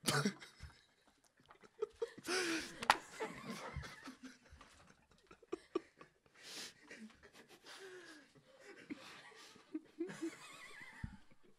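People laughing, snickering and chuckling, with a short sharp noisy burst about two to three seconds in.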